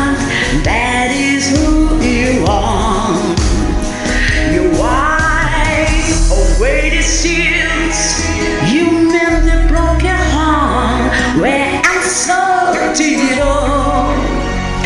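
A woman singing a gospel worship song over its backing music, with long gliding runs in the voice but no clear words.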